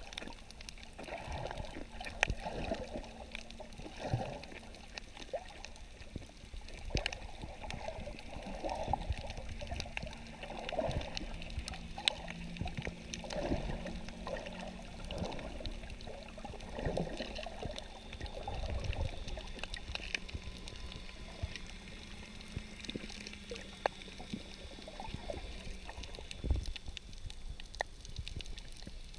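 Underwater water noise picked up by a submerged camera: muffled sloshing and gurgling surges every second or two, scattered sharp clicks, and a steady low hum underneath.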